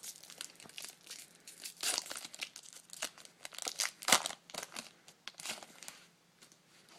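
A Topps Chrome trading-card pack being torn open, its wrapper crinkling and crackling in an irregular run, with louder rips about two and four seconds in. It dies down near the end.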